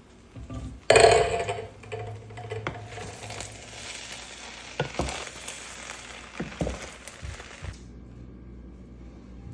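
Cookware clattering and clinking: metal and dishes knocked together over a steady hiss that starts suddenly about a second in and cuts off near the end.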